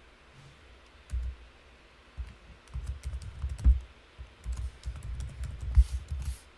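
Typing on a computer keyboard: a run of uneven key clicks, thickest from about two seconds in.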